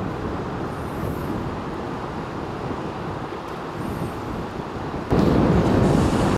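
Steady low rumbling noise on the open deck of a moored ferry, which jumps abruptly louder about five seconds in.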